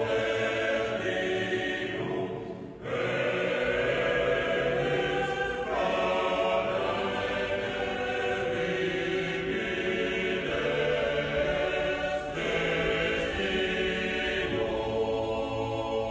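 Sardinian mixed-voice choir singing a slow, sustained polyphonic passage, with a brief break for breath about three seconds in.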